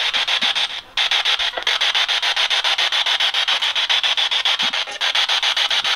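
Handheld spirit box radio sweeping rapidly through stations, played through a small speaker: a fast, even chopping of static hiss, about ten pulses a second, briefly cutting out about a second in.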